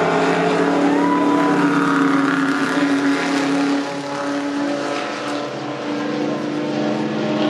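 Two pre-1935 Grand Prix racing cars passing at speed, their engines running hard at high revs as a steady drone of several pitched tones. It drops a little about four seconds in as the cars draw away.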